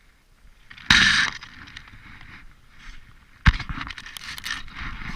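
A short rushing burst about a second in, then a sharp knock and a spell of clicking and rustling right at the microphone as a hand handles fishing gear close to the camera.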